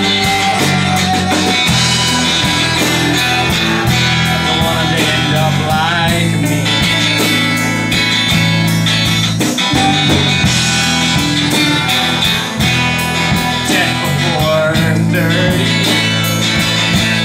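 Live band playing, led by strummed acoustic guitar with electric guitar and drums keeping a steady beat.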